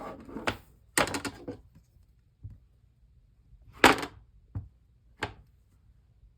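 Craft tools and supplies handled on a tabletop: a run of separate clicks and knocks, a quick cluster about a second in and the loudest knock just before the four-second mark.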